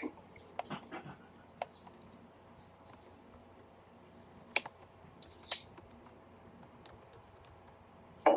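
A few faint, irregularly spaced clicks and taps from typing on a computer keyboard, with long quiet gaps between them and a sharper tap near the end.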